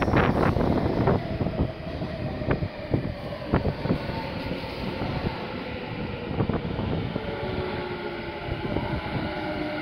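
Tobu 50070-series electric commuter train pulling slowly away, its wheels knocking and clicking over rail joints and points. A faint steady whine from the traction motors runs under the rumble.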